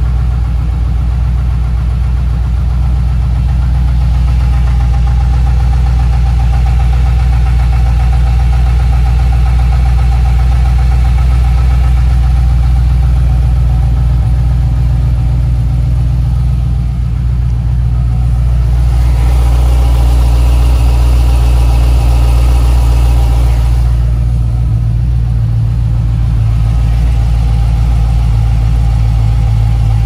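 GM LS3 6.2-litre V8 idling steadily on a cold start, with the cold-start noise that the owner cannot place between lifter tick and piston slap. It grows louder and brighter for about five seconds past the middle, then settles back.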